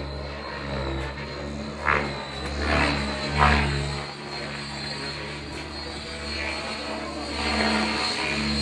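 Align T-Rex 700E electric RC helicopter flying overhead: a steady high motor and drivetrain whine over the low drone of its rotors. The sound swells louder briefly about two seconds in and again about three and a half seconds in.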